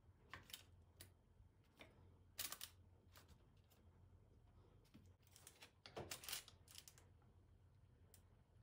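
Faint, scattered clicks and light taps, loudest about two and a half seconds in and in a quick cluster around six seconds in.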